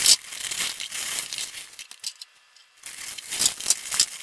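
Ice cubes clattering and sliding out of a clear plastic container onto a dyed shirt bedded in aluminum foil, in two spells with a short lull of about a second between them.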